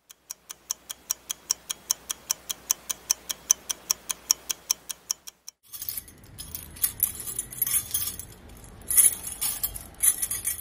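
Fast, even clock ticking, about five ticks a second, which stops about five seconds in. After a short gap comes a metallic jingling of small dangling pieces, like bridal kaleere swaying, over a low hum.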